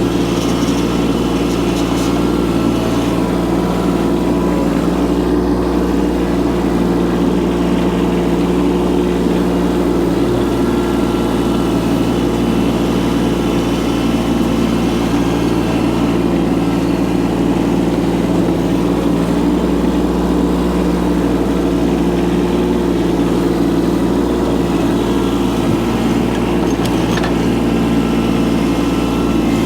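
A Chinese micro excavator's engine running at a steady, unchanging speed.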